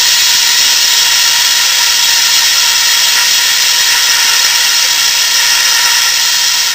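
Carbon dioxide hissing steadily and loudly out of a CO2 fire extinguisher's horn into a pipe packed with core sand, gassing the sand core to harden it. The hiss stops abruptly at the very end as the valve is let go.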